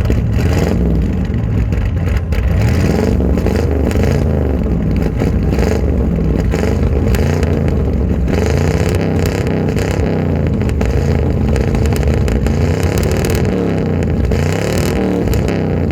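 1968 Ford Galaxie's V8 running through an 8-into-2 header and dual exhaust with an H-pipe, revved over and over so that its note keeps rising and falling.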